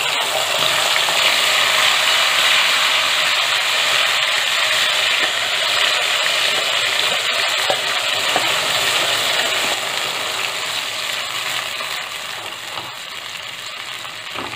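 Wet ginger, chilli and tomato paste sizzling in hot oil with cumin seeds and curry leaves in a kadhai, stirred with a wooden spatula. The steady sizzle is strongest at first and slowly dies down over the second half as the paste's water cooks off.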